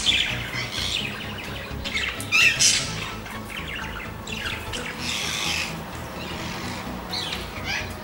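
Parrots squawking: several harsh calls a second or two apart, the loudest right at the start and about two and a half seconds in, over background music.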